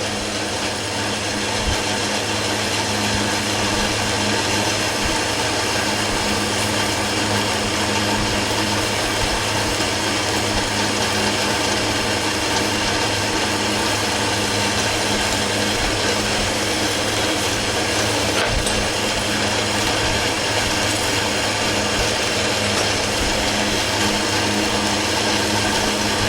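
Metal lathe running under load, its cutting tool taking a heavy roughing cut on a metal workpiece, with a steady motor hum.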